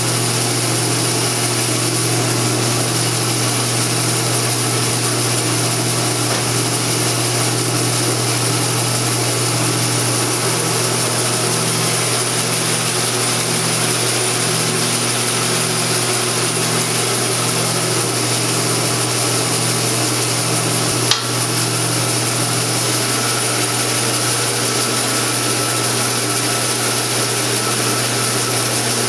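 Old Jet floor-standing bandsaw running steadily with no cut, its electric motor giving a steady low hum with a slow regular pulse in it. A single sharp click comes a little over two-thirds of the way through.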